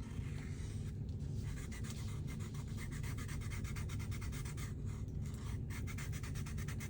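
Drawing on a cardboard box: quick, repeated scratchy strokes of a drawing tool on cardboard, several a second, with no let-up.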